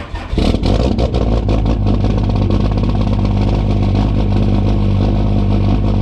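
Diesel pickup engine cold-starting without a grid heater: it catches right at the start, runs loud and uneven for a second or two, then settles into a steady idle.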